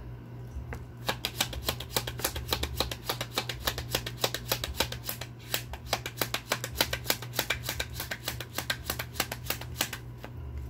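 A deck of Lenormand cards being shuffled by hand: a fast run of crisp card clicks, about five a second, starting about a second in and stopping near the end.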